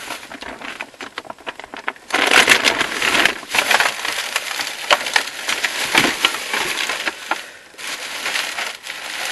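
Rummaging through stored things in search of a vacuum cleaner part: crinkling and rustling with many small knocks as items are shifted about, getting louder about two seconds in.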